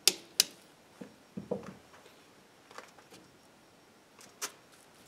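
A few sharp clicks and light knocks from hands handling an EDM generator's bare aluminium case and its panel connectors. Two loud clicks come close together right at the start, then fainter ones spread out across the rest.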